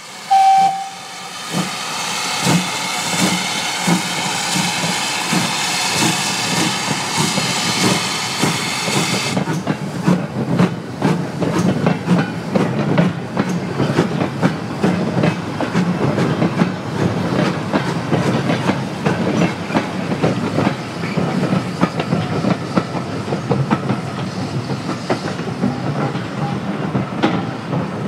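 Great Western Manor class 4-6-0 steam locomotive 7820 Dinmore Manor pulling away with a loud steam hiss from its cylinders, after a brief whistle note at the start; the hiss stops suddenly about nine seconds in. Then the wagons and coaches of its train roll past, their wheels clicking and knocking steadily over the rail joints.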